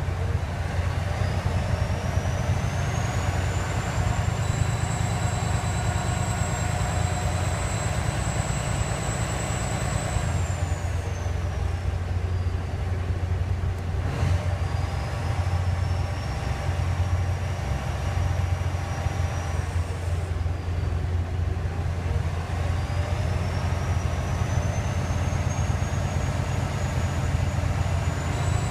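Cummins ISX 530 diesel engine running steadily while its turbocharger gives a high whistle. The whistle rises, holds for several seconds, then falls away, three times over, while the engine's own note stays much the same. The owner calls it a weird turbo sound.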